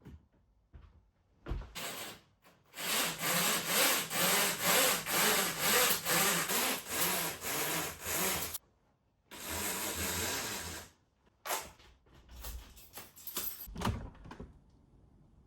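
Rhythmic scrubbing strokes, about two to three a second, stopping briefly partway through, then a few scattered strokes near the end.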